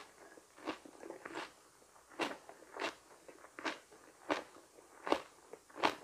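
Chewing crunchy raw vegetables, a crisp crunch about every two-thirds of a second.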